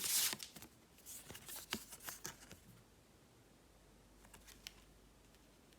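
Tarot cards being handled: soft rustles and light taps as the next card is drawn and laid down, a cluster of them in the first few seconds and a few faint ticks near the end.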